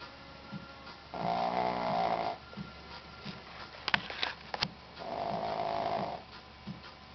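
Elderly Shih Tzu snoring in her sleep: two long, buzzing snores about four seconds apart, each lasting about a second. A few sharp clicks come between them.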